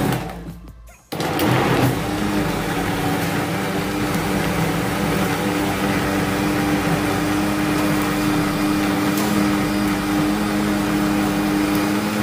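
Countertop electric blender puréeing peppers. The motor winds down over the first second, starts again about a second in, and then runs steadily with an even hum.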